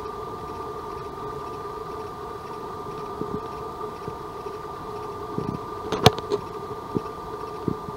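Steady mechanical hum, with a few soft thumps and one sharp click about six seconds in as a climber walks backwards down a rock face on a rappel rope.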